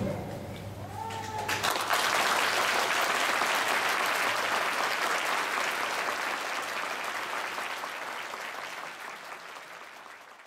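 The band's final sustained chord fades out, and about two seconds in an audience breaks into applause. The clapping stays strong for a few seconds, then gradually dies away near the end.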